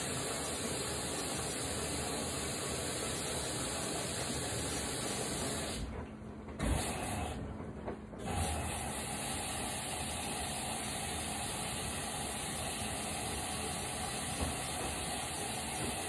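LG front-loading steam washer filling at the start of a wash: water hissing steadily in through the fill valve and detergent dispenser. The flow cuts out briefly twice around the middle, with a soft knock between, then runs on.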